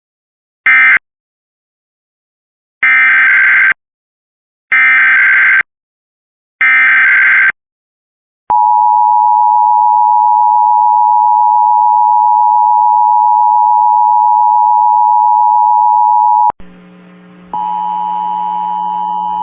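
Emergency Alert System tones: a short end-of-message data burst, then three buzzy SAME header data bursts about two seconds apart, then the steady two-tone EAS attention signal held for about eight seconds. It cuts off abruptly and gives way to a different set of steady tones, quiet for a second and then louder.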